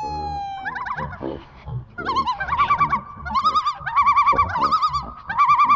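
A person's high-pitched, wavering wail in several bursts from about two seconds in, the pitch warbling quickly up and down.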